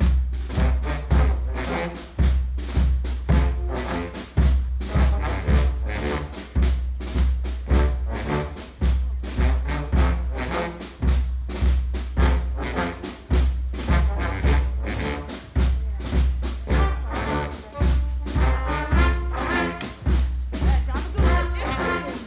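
Live street brass band playing: brass horns, trombone among them, over a steady beat of drums and low bass notes.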